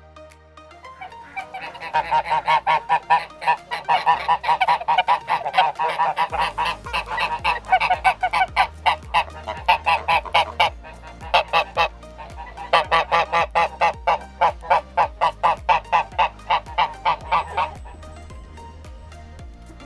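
Domestic geese honking in rapid runs of several honks a second, with a couple of short breaks, stopping near the end.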